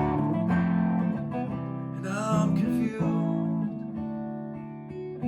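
Mule Mavis guitar strumming chords between sung lines, with a few wavering, gliding notes about two seconds in.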